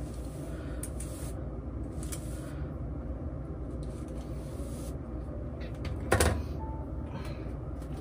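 Hairbrush strokes drawn through long hair, a few short swishes, over a steady low background noise. A single sharp thump about six seconds in.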